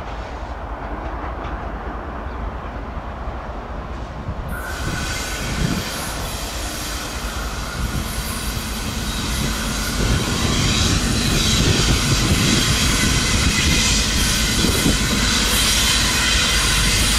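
Freight train rolling through, its steel wheels squealing on the rails. The squeal sets in suddenly about four seconds in over a steady rumble, and the whole sound grows louder as the train comes closer.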